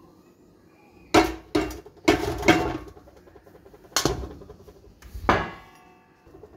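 Metal vessel of ground spice powder knocked against a steel sieve and plate to empty it: about six sharp metallic knocks, each ringing briefly, the last ringing longest.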